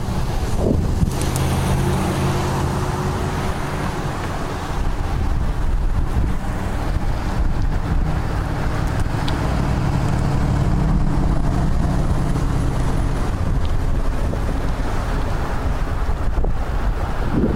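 Wind buffeting a 360fly action camera's microphone while cycling, with road traffic alongside. A car engine's steady low hum runs through most of the middle and fades out near the end.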